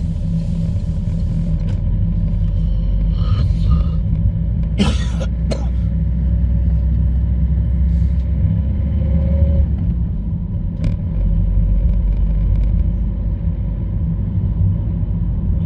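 Steady low rumble of engine and tyre noise inside a car's cabin as it drives along a road. A few short sharp clicks sound about five seconds in, and one more near eleven seconds.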